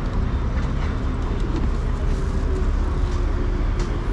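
Road traffic on a city street: cars and buses passing, a steady low rumble.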